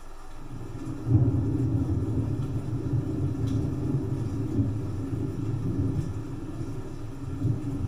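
Thunder rolling: a low rumble that builds, swells sharply about a second in and keeps rumbling unevenly, over a steady rain hiss.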